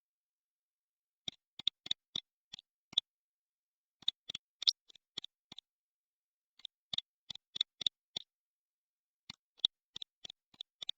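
Four short runs of light, sharp clicks, five to eight in each run, with silence between the runs.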